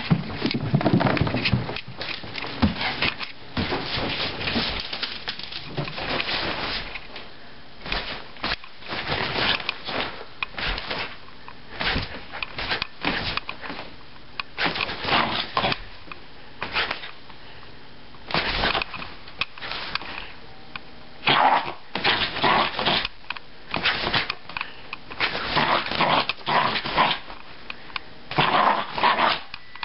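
Jack Russell terrier barking and growling in many short, irregular bursts, the excited play of a dog worked up after a bath.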